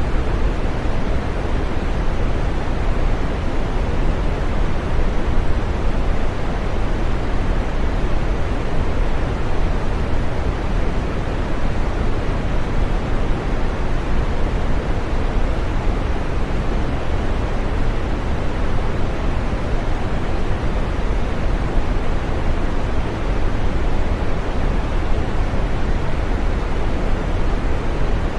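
Steady green noise: an even, unchanging rushing sound, fullest in the low and middle range and thinning out toward the top.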